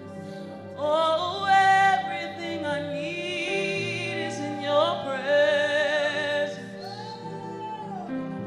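Worship music: a high voice sings wordlessly with wide vibrato, sliding up into long held notes over steady sustained chords, fading out near the end.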